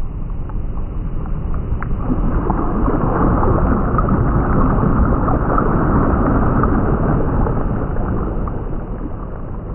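A loud rumbling noise with fine crackling through it, swelling over the first few seconds and fading away near the end.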